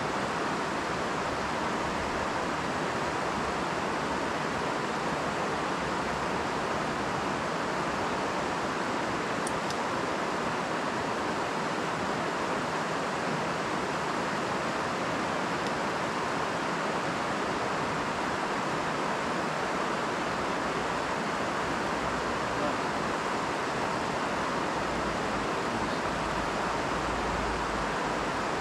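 Steady rush of river water pouring over a low weir, an even unbroken noise.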